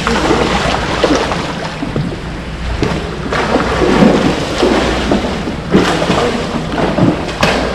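Wind buffeting the microphone and water washing around a small fishing boat, with a few sudden knocks.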